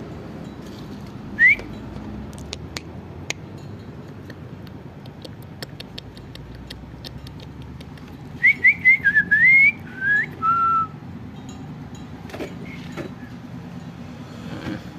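Short, high whistled notes: a single rising one about a second and a half in, then a quick run of rising whistles around eight to nine seconds, ending on two lower, held notes.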